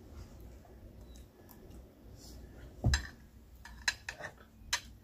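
Metal spoon and fork clinking against a dinner plate while eating: about four short clinks in the last two seconds, the first the loudest.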